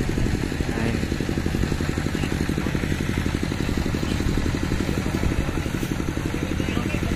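Diesel generator engine running steadily at idle, a fast even pulsing throb.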